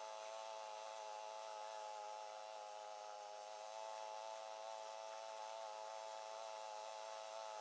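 Faint, steady buzzing hum made of several pitched tones that stay unchanged throughout.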